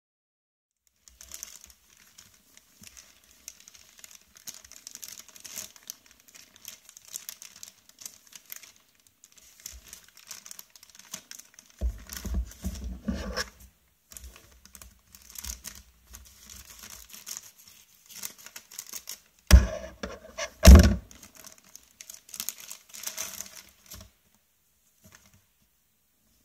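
Plastic poly mailer bag crinkling and tearing as it is pierced with a ballpoint pen and ripped open by hand, with heavier handling noise about halfway through and two loud thumps a second apart later on.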